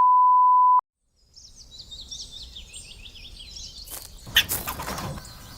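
A short, loud, steady electronic beep at a single pitch, cut off abruptly; after a brief silence, birds chirp over a faint outdoor ambience, with a burst of rustling about four seconds in.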